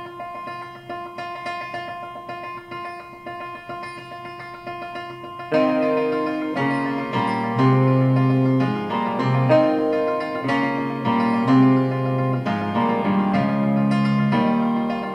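Piano-led jazz trio music played through Klipsch R-15PM powered bookshelf speakers and picked up by a recorder in the room. Quiet held piano chords give way, about five seconds in, to a louder, busier piano passage over bass.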